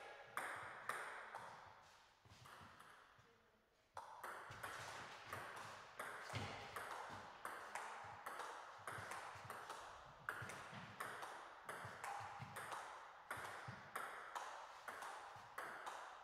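Table tennis rally: the ball clicking alternately off the bats and the table, two to three sharp clicks a second, after a few scattered bounces at the start.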